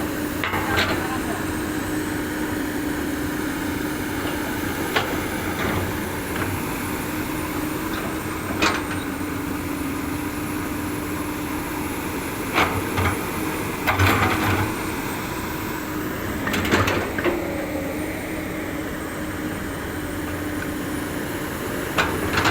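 Komatsu PC200 excavator's diesel engine running steadily as the machine travels on its crawler tracks, with sharp clanks of the track gear now and then.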